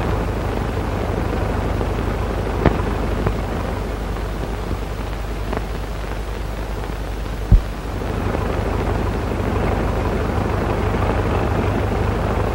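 Biplane engine drone overhead, heard as a steady rumble through the hiss of an old film soundtrack, growing a little louder about two-thirds of the way through. A few sharp pops of soundtrack crackle cut through it, the loudest a little over halfway.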